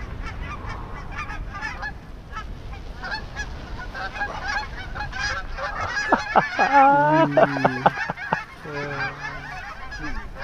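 A large flock of geese calling as it circles overhead: many overlapping honks and cackles, with a louder burst of calls about six to eight seconds in.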